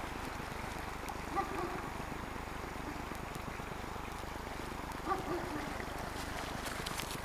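Steady rush of waves on the shore, with two short distant animal calls, about a second in and about five seconds in.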